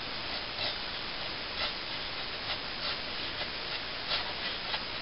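Thin Cold Steel Latin machete blade shaving curls off a pine stick, carving a feather stick: a series of short, irregular scrapes roughly once a second, over a steady hiss.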